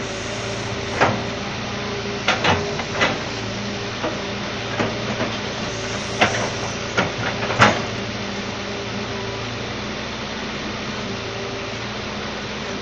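Hitachi Zaxis excavator's diesel engine running steadily, with a series of sharp metallic knocks and clanks between about one and eight seconds in.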